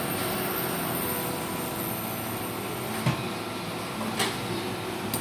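Steady fan-like whir and hiss, with a light knock about three seconds in and a smaller one about a second later as the spatula and pancake are handled.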